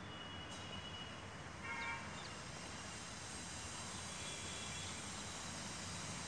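Faint, steady outdoor background noise, with a brief faint higher-pitched call about a second and a half to two seconds in.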